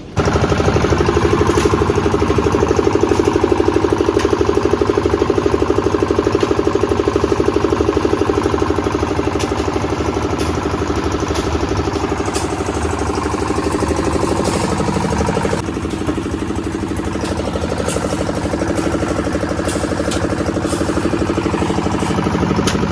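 Engine of slab-pouring machinery, such as a concrete mixer, running steadily with a fast, even chugging. It begins abruptly.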